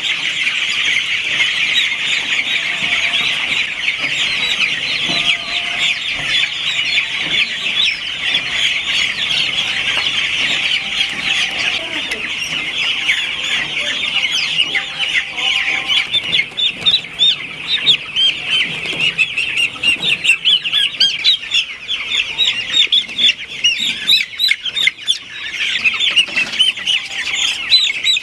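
A large flock of broiler chickens calling: many short, high chirping calls overlapping into a continuous din, growing more separate and uneven in the second half.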